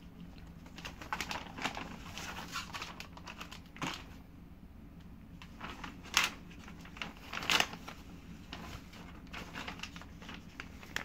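Plastic packaging crinkling and rustling as it is handled, including a plastic courier bag being moved. There are a few sharp knocks, the loudest about six and seven and a half seconds in.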